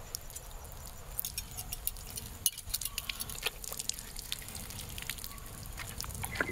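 Camping gear being packed up: scattered small clicks and clinks at irregular intervals over a low rumble.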